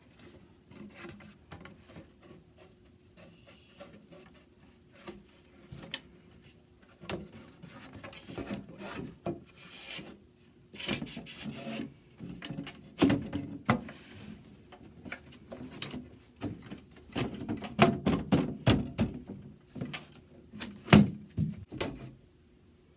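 A thin wooden drawer bottom is fitted back into a dresser drawer's glued grooves. Wood scrapes and rubs against wood, with irregular knocks that grow louder and busier in the second half.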